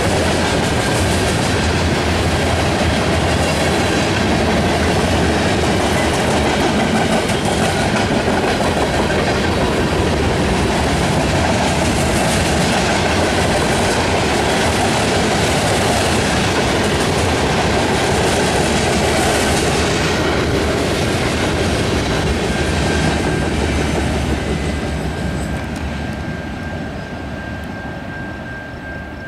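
Freight cars of a Canadian National mixed freight train rolling past, wheels clickety-clacking steadily over the rail joints. The sound fades near the end as the last car passes and the train moves away.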